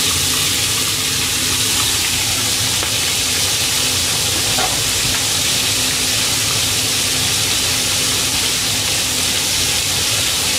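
Hot oil sizzling steadily as floured fish pieces deep-fry in a shallow pan.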